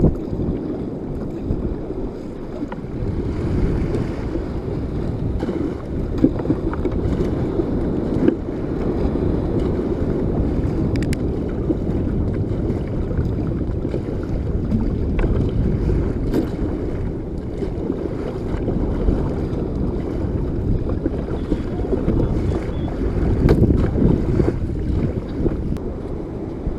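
Steady wind rumble on the microphone mixed with water sloshing and paddle strokes splashing as a kayak is paddled in through the surf.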